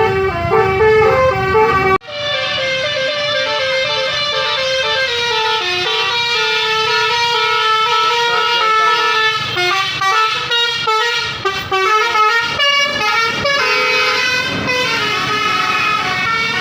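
Bus 'telolet basuri' multi-tone musical horn playing a tune of quick stepping notes. It cuts off sharply about two seconds in, then another melody follows.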